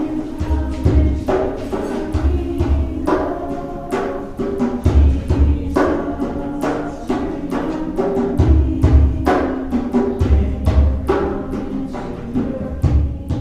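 Instrumental music: sustained pitched notes with deep drum-like beats and sharp strikes under them.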